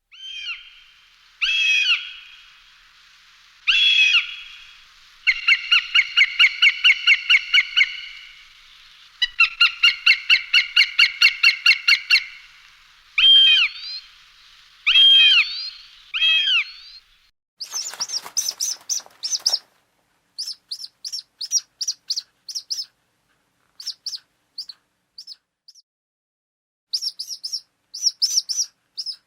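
A hawk calling: single downward-slurred calls and two long runs of rapidly repeated notes over a faint hiss. From a bit past halfway, short, high chirps come in quick clusters with gaps between them.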